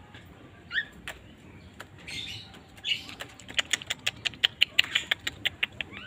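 Young yellow-vented bulbul calling: a few separate short calls, then from about halfway a fast run of short, sharp chirps, about five a second.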